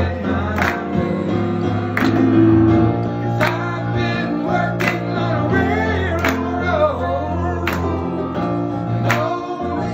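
A man singing with keyboard accompaniment, other voices joining in harmony. The music has a strong accented beat about every second and a half.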